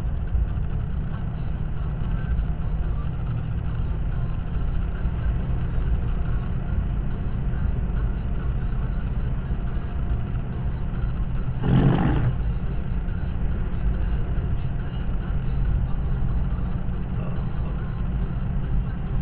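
Steady low rumble of engine and tyre noise inside the cabin of a car driving on the open road. About twelve seconds in, a brief rush of louder noise as an oncoming vehicle passes.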